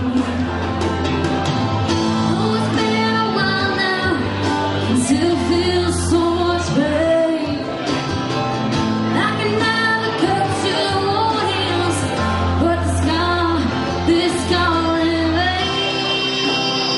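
A woman singing live into a microphone, accompanying herself on electric guitar. Her voice drops out near the end, leaving the instrumental part.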